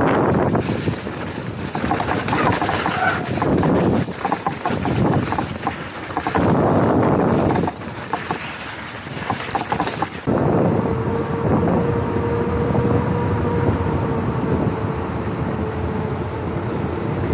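Wind buffeting the microphone of a camera on a mountain bike moving fast down a dirt trail, mixed with the rumble and rattle of the bike over the ground in uneven surges. About ten seconds in the sound changes abruptly to a steadier rush as the ride is on paved road, with a faint steady hum underneath.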